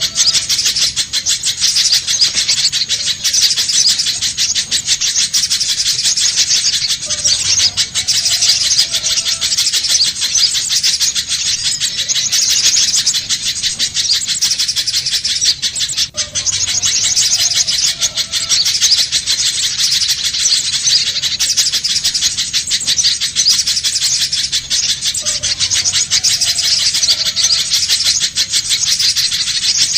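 Little spiderhunter calling nonstop: a rapid, unbroken stream of high-pitched chattering notes.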